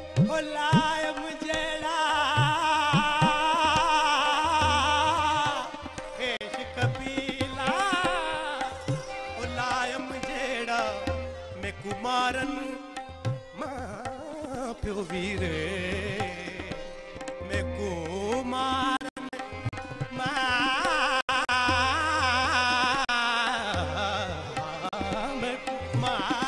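Male singer performing a South Asian classical-style vocal with tabla accompaniment. He sings fast, wavering ornamented runs over a steady drone, with deep tabla bass strokes underneath.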